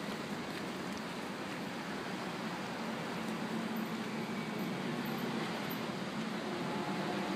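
Steady background noise: an even rushing hiss with a faint low hum underneath, unchanging throughout.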